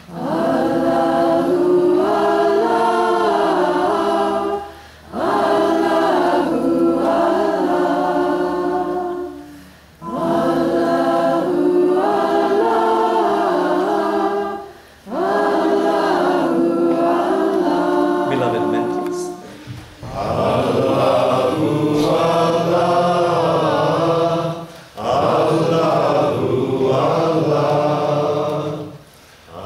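A congregation singing a chant together, repeated in six phrases of about five seconds each with a short breath between them. Lower voices come in more strongly in the second half.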